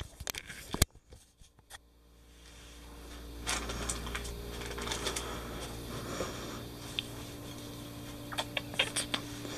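Handling knocks and rustles from a handheld camera in the first second or so, then a steady low hum with scattered small clicks and rustles.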